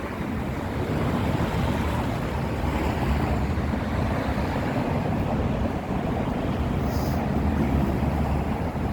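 Wind buffeting the microphone in a low, unsteady rumble over the steady hum of city street noise.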